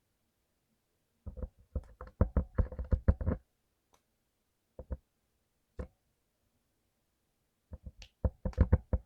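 Mechanical keyboard with clicky blue switches being typed on: a quick run of keystrokes about a second in, two single key presses, then another fast burst near the end.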